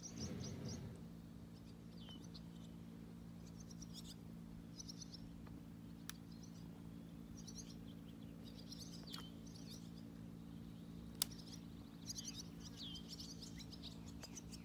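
Small birds chirping in short, quick trilled phrases every second or two, over a faint steady low hum. A single sharp click about eleven seconds in.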